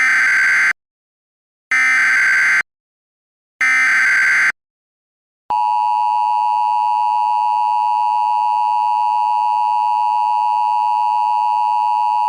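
Emergency Alert System SAME header: three bursts of harsh data-tone screech, each about a second long with a second of silence between them. About five and a half seconds in, the steady EAS attention tone begins and holds unbroken.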